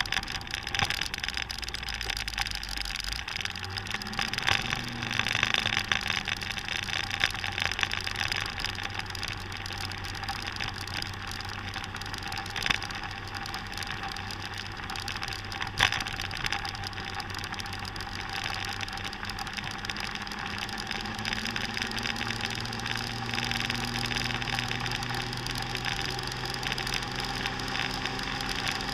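Motor scooter engine running at road speed, its pitch dipping and recovering briefly early on and climbing slowly in the last third, under steady wind rush on the microphone. Two sharp clicks midway.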